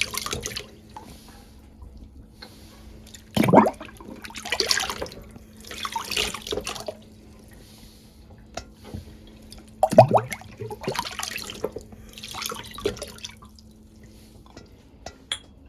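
Water splashing and dripping as glass jars are rinsed in a sink, in irregular bursts, with two louder knocks of glass a few seconds in and again about ten seconds in.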